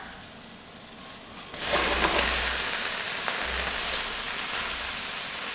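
Cut white button mushrooms dropped into a hot stainless steel skillet with a little water and no oil, setting off a sizzle that starts suddenly about a second and a half in and then goes on steadily, slowly fading.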